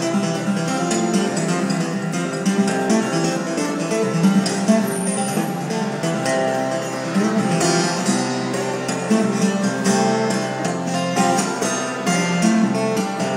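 Fingerpicked acoustic guitar playing a lively tune, with a steady stream of plucked notes and a bass line.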